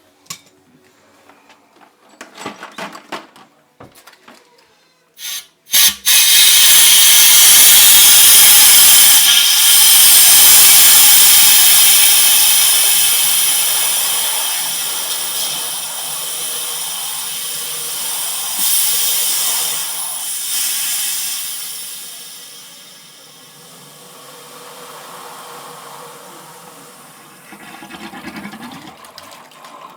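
Water rushing into a newly installed water heater tank as it is filled: a loud hiss starts suddenly about six seconds in and eases off to a quieter rush over the last several seconds. A few light knocks come before it.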